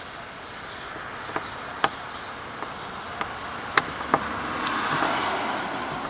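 Several sharp, separate clicks of a screwdriver meeting the screw and plastic surround behind a car's interior door handle. Under them runs a rushing background noise that swells about five seconds in and then fades.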